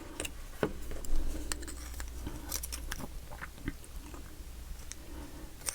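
Scattered light clicks and scraping of small metal lock parts being handled while a T-shaped security pin is worked into a lock cylinder's pin chamber.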